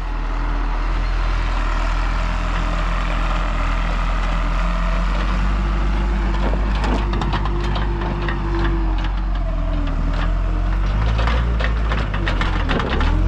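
Skid steer engine running steadily under load, with a hydraulic whine that rises and falls. From about halfway through, a straw bale crackles, crunches and knocks as it is pushed onto the stack.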